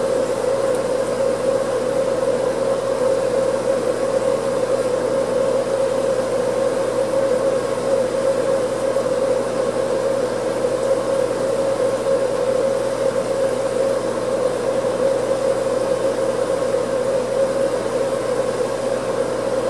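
Steady machine hum with a strong mid-pitched drone and a fainter low hum, unchanging throughout.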